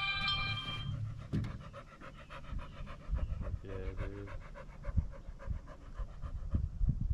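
A large dog panting fast and steadily right by the microphone. A short high whine sounds right at the start.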